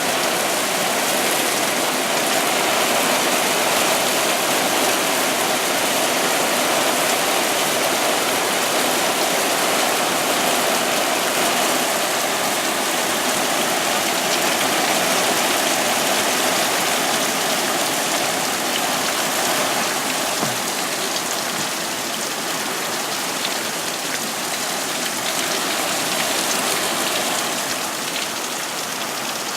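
Heavy thunderstorm rain pouring down steadily, easing slightly near the end.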